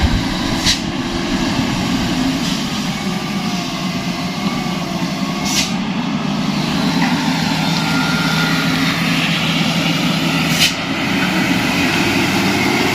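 Truck engine running steadily on the move, with three short sharp knocks spread through, like the cab jolting over the rough road.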